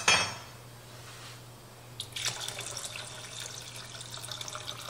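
Homemade chicken stock poured from a glass canning jar into a pot of soup: a steady liquid splashing that starts about two seconds in, just after a small click.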